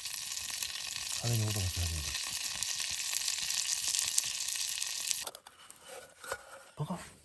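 Food sizzling in a frying pan over the heat, a steady hiss that cuts off abruptly about five seconds in, followed by a few light clicks.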